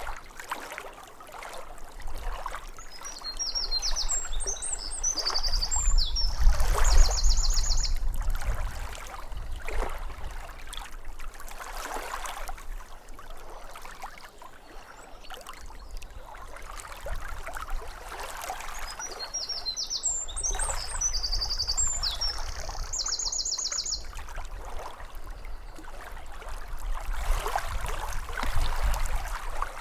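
Lake water lapping at the shore in irregular splashing swells over a low rumble. A songbird sings the same short phrase twice, about fifteen seconds apart, each ending in a quick even trill.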